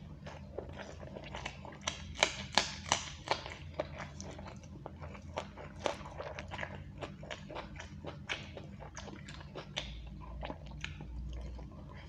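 Close-miked eating sounds of a person eating rice with egg curry by hand: wet chewing and lip smacking, with quick sharp clicks that are thickest a couple of seconds in. A steady low hum runs underneath.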